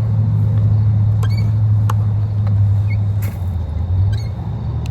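Car cabin noise while driving: a steady low rumble of engine and road, with a few faint clicks and squeaks.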